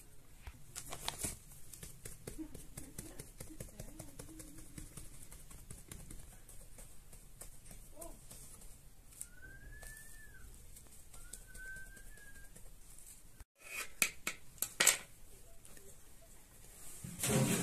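Quiet hand work on bread dough on a board: light taps, rustles and small clicks as petals are pressed into the dough. Two short chirps sound about halfway through, and a few sharp knocks come near the end.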